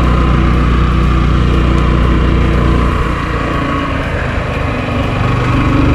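Motorcycle engine running under way. The engine note eases off about three seconds in and picks up again near the end.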